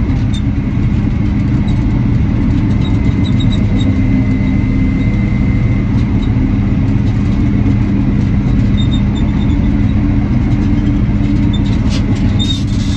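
Komatsu D65 crawler dozer's diesel engine running steadily under load, heard from inside the cab, with a thin steady whine over the engine. A few sharp rattles near the end.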